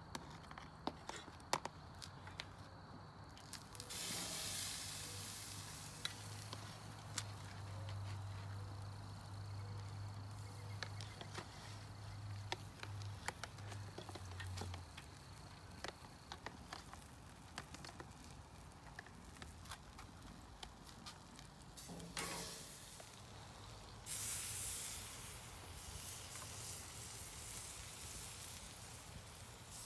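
Sauce-dipped chicken drumsticks sizzling in short hissing bursts as they are laid on a hot charcoal grill grate, about 4 s in, again near 22 s and 24 s, with scattered clicks of metal tongs between.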